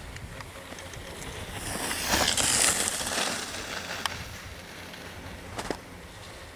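Skis carving and scraping across packed snow on a groomed slope: a hiss that swells to its loudest about two seconds in as the skier turns close by, then fades, with a couple of short sharp clicks later.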